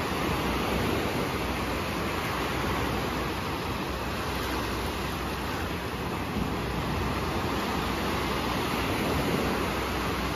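Small sea waves breaking and washing up on a sandy shore, a steady rush of surf.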